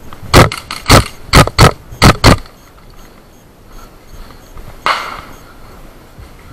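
Six sharp shots from an airsoft rifle fired right at the microphone, irregularly spaced over about two seconds, followed about two and a half seconds later by a single softer rustling burst.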